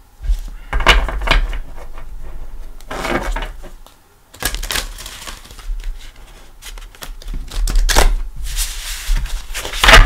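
A deck of large oracle cards being shuffled by hand: runs of quick papery clicks and slaps, with a short pause about four seconds in.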